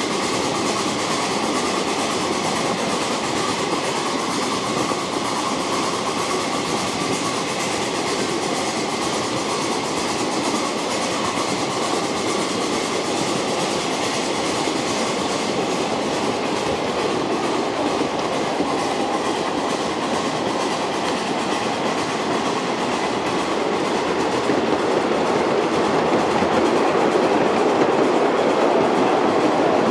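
Ride-on live-steam miniature train running on a climb: steel wheels clattering over the rail joints and the locomotive working, a steady busy noise that grows a little louder in the last few seconds.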